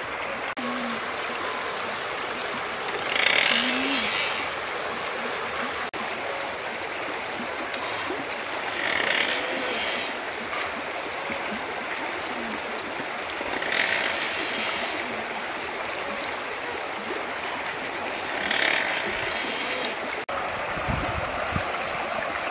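Steady rush of a river flowing by, with a short, higher burst of sound rising above it four times, about five seconds apart.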